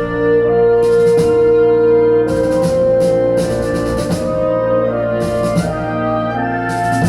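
Instrumental music with sustained keyboard chords and a slowly changing melody line, with brief bright hissy accents at intervals, played back through a CD player, amplifier and loudspeakers.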